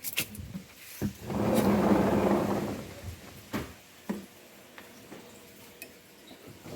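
Household handling noises: a few sharp clicks and knocks, with a noisy scraping or rustling swell lasting about a second and a half as the loudest part.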